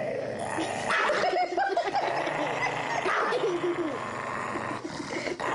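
Dog growling over its bone, a grumbling growl whose pitch wavers up and down: guarding the bone from its own hind leg.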